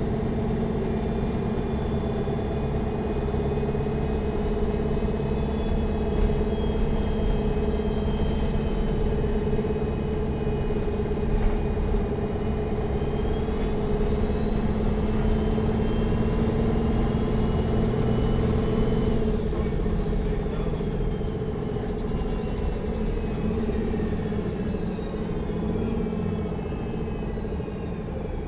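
Neoplan N4516 Centroliner Evolution city bus heard from inside the cabin while driving: a steady diesel engine drone with a high whine that climbs slowly from about the middle, drops away about two-thirds through, then falls again toward the end.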